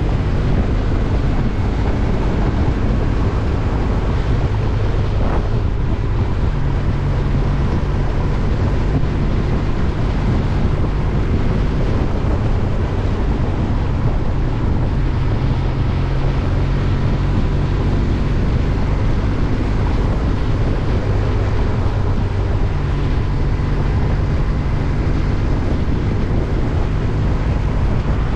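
Wind rushing over the microphone on a moving Kawasaki W800, with the bike's air-cooled parallel-twin engine running steadily underneath. The engine note shifts in pitch a few times.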